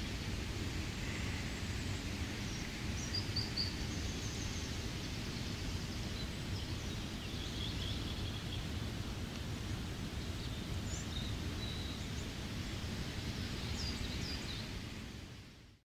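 Steady rain with forest birds giving short, high chirps now and then, fading out near the end.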